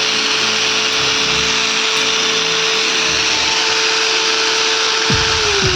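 Bosch GWS 600 angle grinder running at full speed with a steady whine and hiss, then starting to spin down near the end. Background music underneath.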